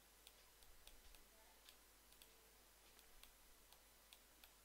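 Near-silent room tone with faint, irregular light clicks, one to several a second, from the input device as the answer is handwritten on screen.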